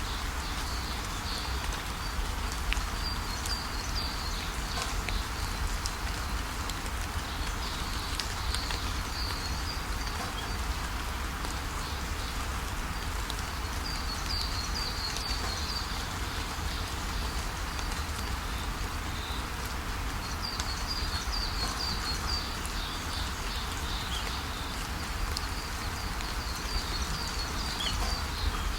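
Steady rush of a waterfall, with birds chirping in quick runs of high notes every few seconds.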